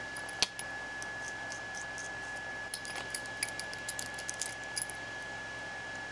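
A small precision screwdriver ticking and clicking against screws as they are backed out of the striker cover on a gas blowback rifle's trigger housing: a string of light ticks about three seconds in, after a single sharp click about half a second in.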